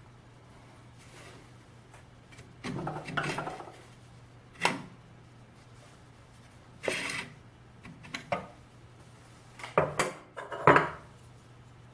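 Metal parts being handled and fitted on a Consew 333RB-1 industrial sewing machine: a scrape of sliding metal, then a series of sharp clicks and clacks, the loudest near the end, as an attachment plate and waistband folder are set in place.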